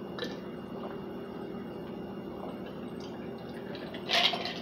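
A person drinking from a stemmed glass: faint sips over a steady low room hum, then a short, louder breathy sound about four seconds in as the glass comes away from the mouth.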